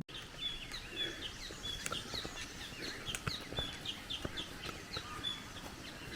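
Several birds calling together in forest: a short high note repeated every second or two among many quick chirps.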